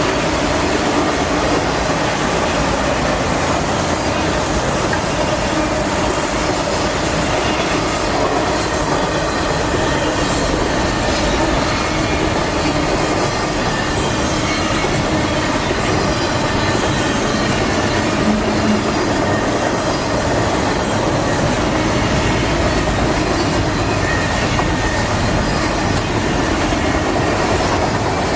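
A train passing close by: a long, steady rumble and rattle of cars rolling over the rails, with a faint squeal from the wheels.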